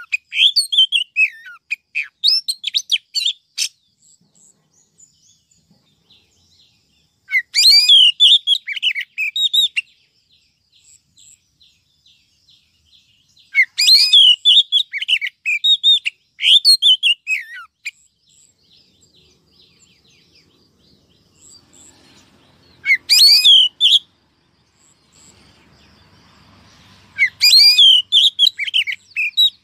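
Female oriental magpie-robin calling in bouts of rapid chirps and short whistled glides, with quiet pauses of a few seconds between bouts. It is a lure recording of a hen, played to excite males and draw them in.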